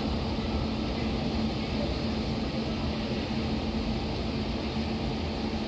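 Kosi Express passenger train rolling out of the station: a steady rumble of the moving train with a constant low hum.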